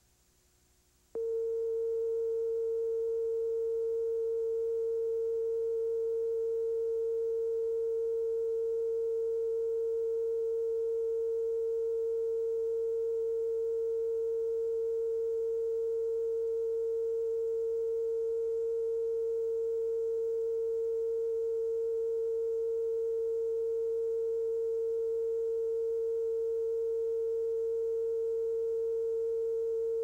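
TV station's steady test tone that accompanies the color bars after sign-off. It is one unbroken pitch that switches on suddenly out of near silence about a second in.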